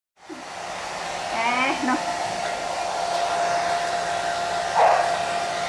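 Hair dryer running steadily with a constant motor whine. A pitbull puppy gives a short whine about a second and a half in, and another brief cry near the end.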